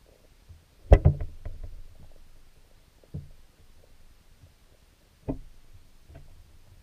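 Muffled knocks heard underwater through a camera inside a wire-mesh minnow trap, over a low rumble of moving water. A loud knock comes about a second in with a quick rattle of clicks after it, then three fainter single knocks.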